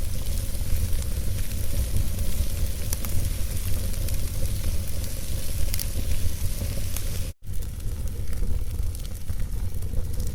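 Wood fire burning in a fireplace: a steady low rumble and hiss with scattered sharp crackles from the logs. The sound cuts out to silence for a split second about seven seconds in.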